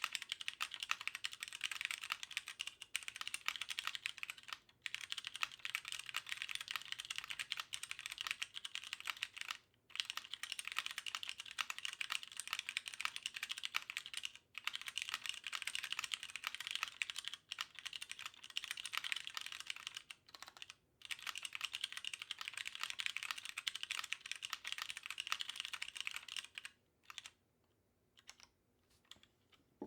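Continuous typing on a Weaston GSKT-00 custom mechanical keyboard: stock Cherry MX Hyperglide Brown tactile switches in a polycarbonate plate, under DCS keycaps. There are short pauses every few seconds, and the typing mostly stops about 27 seconds in, leaving a few scattered keystrokes.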